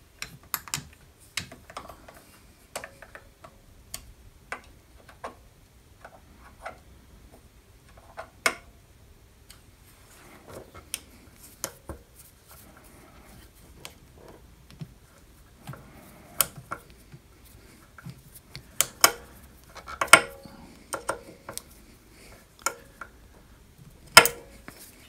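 Irregular small clicks and metal-on-metal taps of hand assembly work on a drill press: parts being fitted and small screws turned with a hex key, busier in the second half, with a sharper click near the end.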